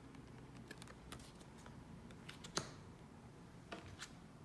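Tarot cards being handled and turned: scattered light clicks and taps of card stock, with one sharper snap about two and a half seconds in and a couple more taps near the end.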